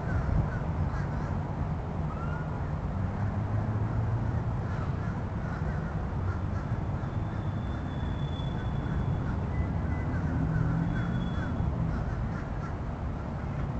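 Birds calling, with short cawing calls scattered through, over a steady low hum.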